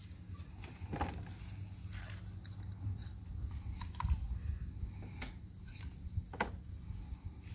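Light, separate clicks and taps from handling the small plastic and rubber parts of a new oil filter kit, about one a second, over a low steady hum.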